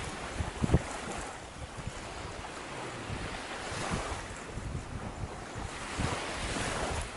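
Sea waves washing in on the shore, swelling and falling every few seconds, with wind buffeting the microphone in low thumps.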